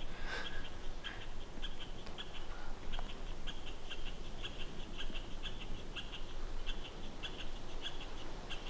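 High-pitched chirping in short, quick clusters, several chirps a second, over a faint outdoor hiss.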